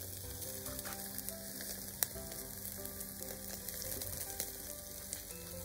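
Beef ribs sizzling on a wire grill rack, with a steady fine crackle of cooking fat and one sharper pop about two seconds in.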